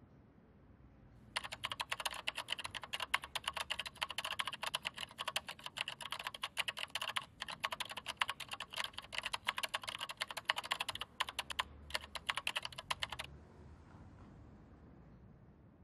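Fast typing on a computer keyboard: a dense run of key clicks that starts about a second in, breaks off briefly a couple of times, and stops a couple of seconds before the end.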